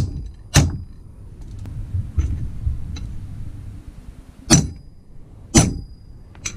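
Hammer blows on a length of pipe, driving a new tapered roller bearing onto a Subaru STI Torsen limited-slip differential centre. Four heavy metallic strikes with a short ring, two close together at the start and two about a second apart near the end, with lighter taps between.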